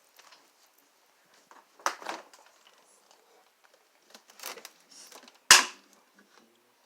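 A man snoring in his sleep: a few short, noisy snorts at uneven gaps, the loudest near the end.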